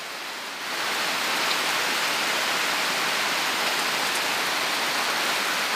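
Steady rain falling, heard from under the roof of a bamboo hut; it grows louder less than a second in and then holds even.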